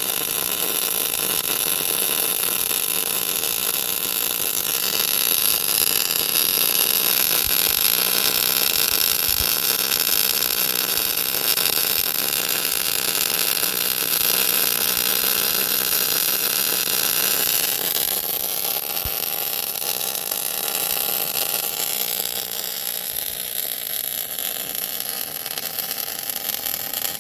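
Plasma cutter gouging cracks out of a steel grader wheel: a steady loud hiss of the arc and air jet that shifts a little in tone about five seconds in and eases near the end.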